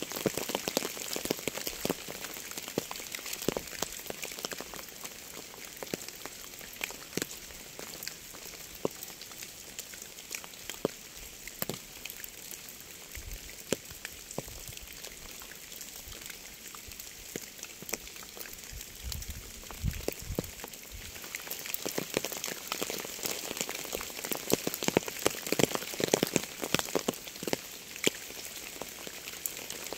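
Rain falling: a steady hiss with many separate raindrops ticking on a surface, heavier in the last third. A few brief low rumbles come around the middle.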